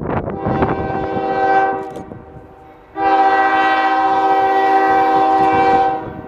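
Diesel locomotive air horn sounding two blasts as the coal train approaches: a shorter blast in the first second or two that fades away, then a louder, longer blast of about three seconds starting halfway in and cutting off near the end. Each blast is a steady chord of several tones.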